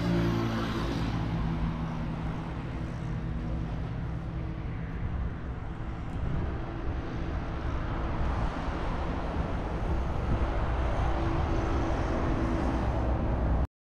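Steady engine and road noise of a moving motor vehicle, a low rumble with a faint steady hum, cutting off suddenly near the end.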